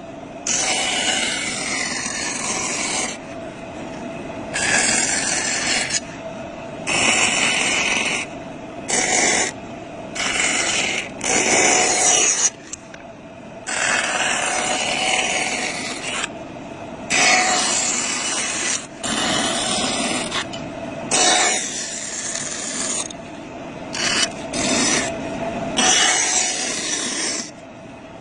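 A motor-driven cutting tool grinding into a pistol in repeated passes. A steady motor whine runs throughout, and loud rasping bursts of uneven length, from half a second to about two seconds, come each time the blade bites.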